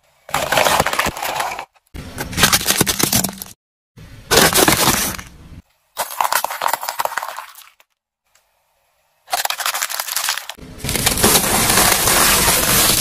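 A car tyre crushing objects in a series of separate cracking and breaking sounds, cut apart by short silences. They include painted glass light bulbs shattering under the tyre and plastic-wrapped snack sticks crunching. The last burst, near the end, is the longest.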